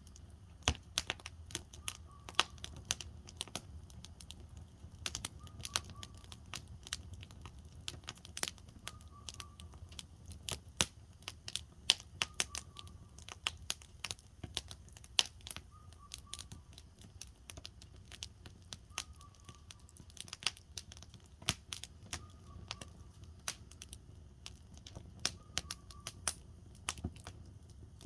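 Firewood burning in a campfire, crackling and popping irregularly, several sharp snaps a second over a low steady background.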